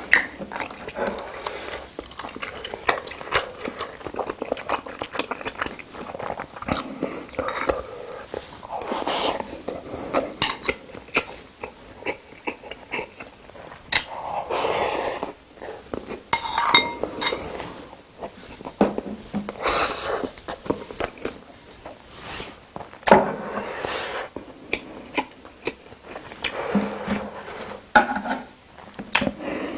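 Close-up eating sounds: utensils clicking and clinking against dishes many times at irregular intervals, with wet chewing of spicy seafood boil between the clicks.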